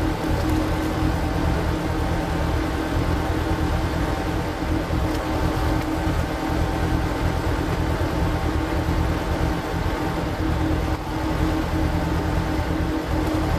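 Power tiller's single-cylinder diesel engine running steadily, driving a screw-cone log splitter, played at double speed.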